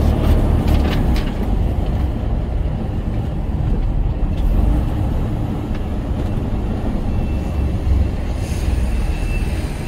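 Lorry's diesel engine running with a steady low rumble, a few light clicks about a second in.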